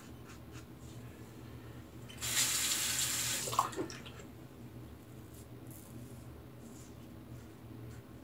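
Bathroom sink tap running for about two seconds, starting about two seconds in and cut off about four seconds in, with the safety razor rinsed under the stream. Faint short scrapes of the Rockwell 6C safety razor on neck stubble come before and after.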